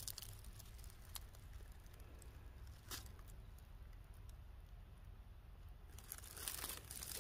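Faint rustling and crackling of dry forest leaf litter, with a few scattered crunches and a short flurry of them near the end.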